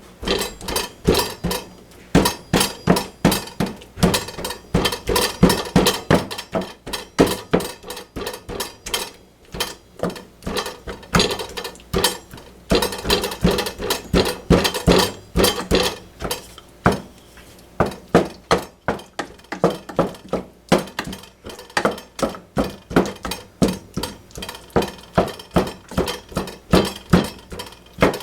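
Knife chopping on a cutting board: rapid, sharp knocks about three to four a second, thinning out briefly a few times.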